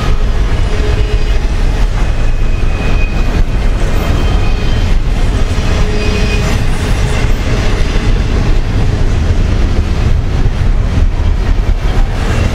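Double-stack intermodal freight cars rolling past: a steady rumble and clatter of steel wheels on rail, with brief faint wheel squeals now and then.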